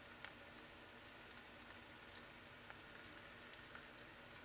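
Faint sizzling with scattered light crackles from thinly sliced fennel sautéing in olive oil in a frying pan.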